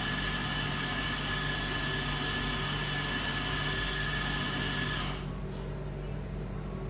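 Metro train running, heard from inside the carriage: a steady rumble with a high electric whine that cuts off about five seconds in, leaving a lower hum.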